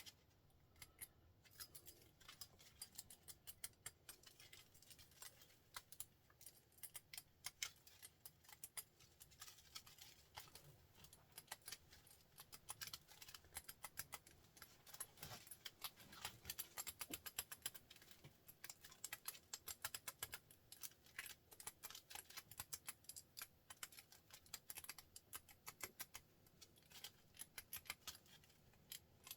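Faint, rapid, irregular clicking and ticking from a small machine's mechanism as it moves back and forth.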